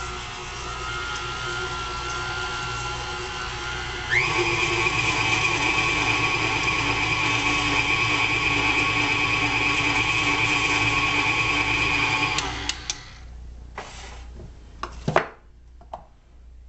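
KitchenAid K45 stand mixer's motor running with a steady whine, stepping up to a higher speed about four seconds in, then switching off after about twelve seconds. A few clicks and a sharp knock follow near the end.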